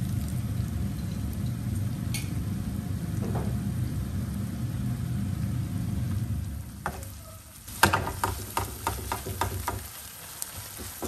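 Minced duck meat sizzling in a nonstick frying pan as white wine is poured in, over a steady low hum. About seven seconds in, a wooden spatula starts stirring and scraping the meat around the pan in quick strokes.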